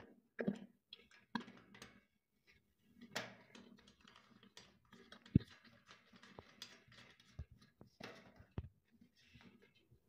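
Faint, scattered clicks and light knocks of metal fittings being worked, with one sharper knock about five seconds in, as a brass cable gland is tightened into a steel control-panel plate.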